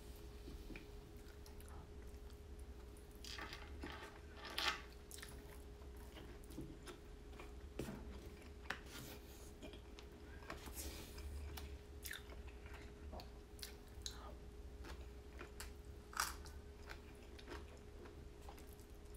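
A person chewing and biting into food close to the microphone, with scattered sharp clicks and a few short crunchy bursts. A faint steady hum runs underneath.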